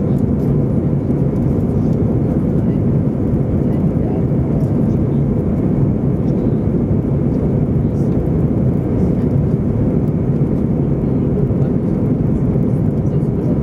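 Steady cabin noise of an Airbus A320 in flight: an even, low rumble of jet engines and rushing airflow heard from inside the passenger cabin.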